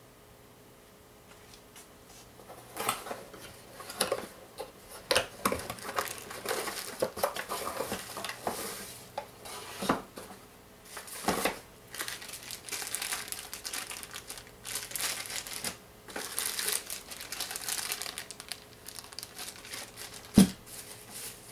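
Unboxing by hand: plastic wrap and bubble wrap crinkling and rustling as they are pulled from a cardboard box, with cardboard flaps scraping and tapping. The handling starts a couple of seconds in and goes in irregular bursts, with one sharp knock about a second before the end.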